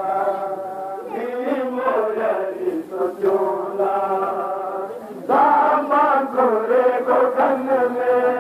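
A group of men chanting a Shia mourning lament (nauha) together in unison, with one sustained melodic line. The chanting gets louder about five seconds in.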